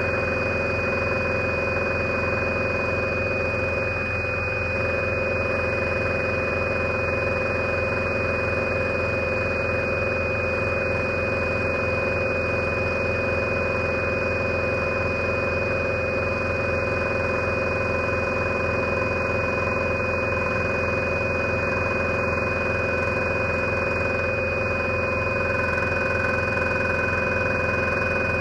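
Scroller 800 scroll saw running steadily, a fine No. 2 blade cutting through wood, with a constant high whine over its hum.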